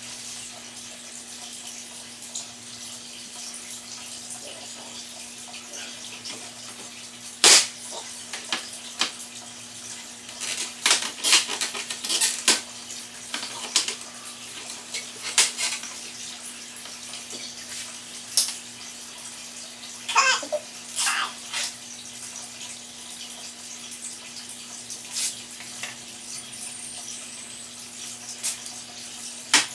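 Scattered clicks, taps and crinkly rustles from handling plastic front lip splitter pieces and peeling the backing off double-sided tape, over a steady hum and hiss.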